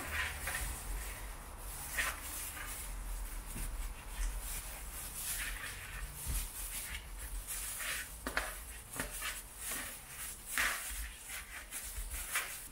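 Plastic-gloved hand tossing oiled, spiced cauliflower florets on a parchment-lined baking tray: irregular rustling and crinkling of the glove, baking paper and florets.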